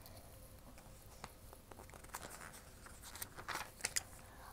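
Faint scattered clicks and light rustles of a hardcover picture book being handled and turned around in the hands, most of them in the second half.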